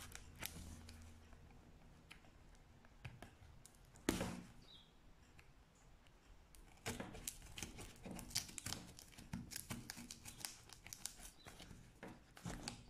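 Swiss Army knife blade slitting the tape seals of a cardboard box: faint scratching and tearing, with one sharper knock about four seconds in and a dense run of scratchy clicks over the second half.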